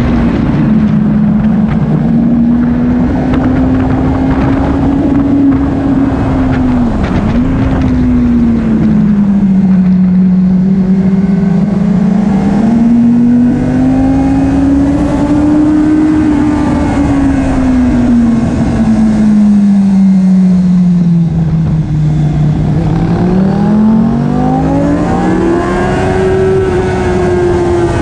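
Onboard sound of a minitwin race motorcycle's twin-cylinder engine at race pace, its note rising and falling with the revs. There is a brief sharp dip about seven seconds in, and near the end the note falls low and then climbs steeply.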